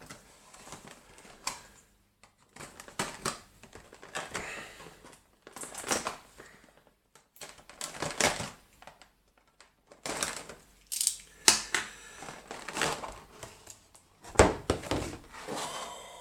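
Plastic and cardboard packaging being handled: irregular crinkling, rustling and small clicks in short bursts, with a louder thump near the end.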